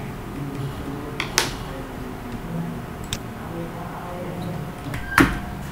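Clicks from a computer mouse and keyboard: three sharp clicks, about a second in, about three seconds in, and the loudest about five seconds in, over a faint low hum.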